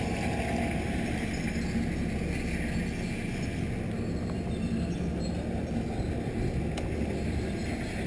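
Corratec mountain bike's tyres rolling over loose dirt and gravel, heard as a steady rumble mixed with wind on the action camera's microphone, with one sharp click near the end.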